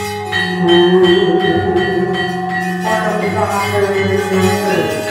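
Javanese gamelan playing: bronze metallophones and gongs ringing, struck at a steady beat to accompany the shadow-puppet play.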